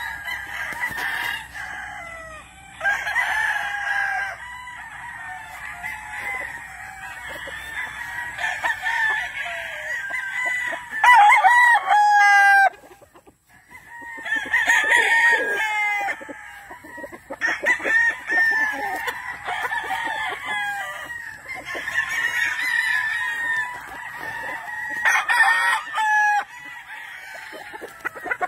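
Several gamecocks crowing one after another and overlapping, with clucking between the crows; the loudest crow comes about eleven seconds in.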